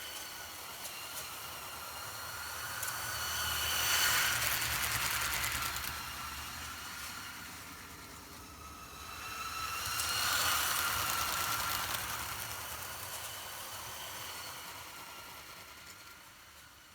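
Motorised LEGO train, its two Power Functions L-motors and gearing running fast with a steady whine, light clicking and a low rumble of wheels on plastic track. It comes close and goes past twice, about six seconds apart.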